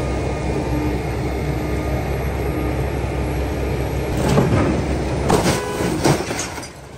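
A vehicle engine running steadily with a low rumble, with a few louder rattles and knocks about four to six seconds in.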